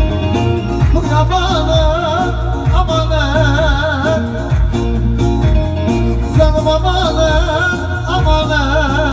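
A male singer sings live through a microphone over an amplified band with a steady low beat. The vocal line moves in quick wavering turns and ornaments.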